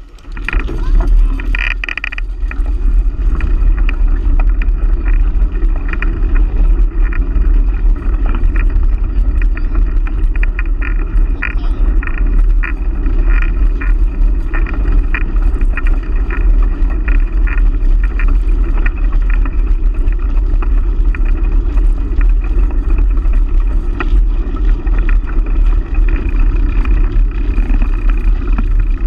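Wind buffeting the microphone and tyre rumble from a bicycle rolling along an asphalt trail: a loud, steady low rumble that comes up suddenly at the start.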